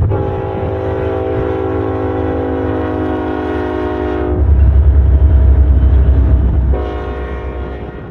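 BNSF diesel locomotive air horn sounding one long blast of about four seconds, then the loud low rumble of the diesel locomotives' engines as they pass close by, and the horn sounding again briefly near the end.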